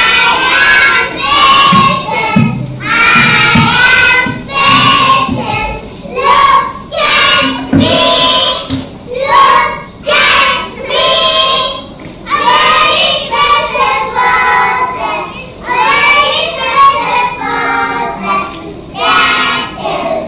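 Children singing a song, phrase after phrase with short breaks between lines.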